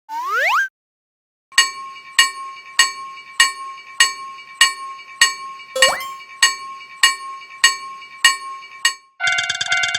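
A short rising whistle-like glide. Then a railroad crossing warning bell strikes its "kan kan" rhythm, a ringing strike about every 0.6 seconds, with one brief rising slide about halfway. Shortly before the end it switches to a different, rapidly pulsing ringing alarm tone.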